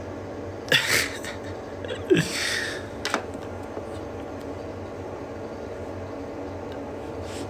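A person's short breathy noises close to the microphone, a quick sniff or huff just under a second in and a longer exhale about two seconds in, with a click a second later, over a steady low hum.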